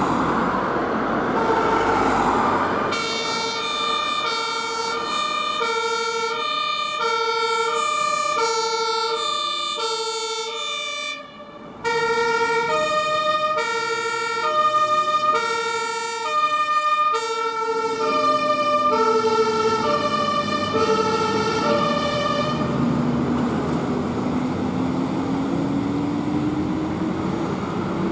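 German two-tone fire engine sirens (Martinshorn) of a passing fire brigade convoy, switching back and forth between two notes about a fourth apart, over the diesel engines of the trucks and road traffic. The siren cuts out for about half a second around eleven seconds in and stops a few seconds before the end, leaving a truck engine note that dips and then climbs.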